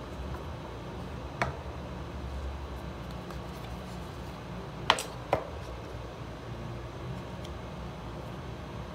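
Hands handling an iPhone box and its packaging: a few short sharp clicks and taps, one about a second and a half in and two close together near the middle, the first of those the loudest, over a steady low hum.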